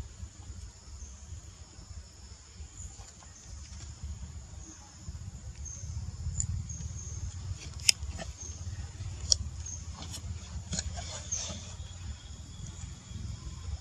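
Outdoor ambience: a steady high-pitched insect drone over a low rumble, with a few sharp clicks between about eight and twelve seconds in.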